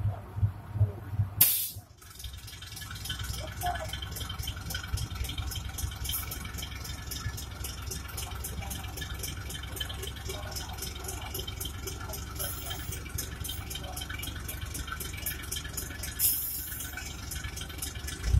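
Breda ALn 556 diesel railcar's engine working hard as the train pulls away slowly uphill in first gear: a rapid, even clatter over a steady low drone. Two loud bursts of hiss break in, about a second and a half in and near the end.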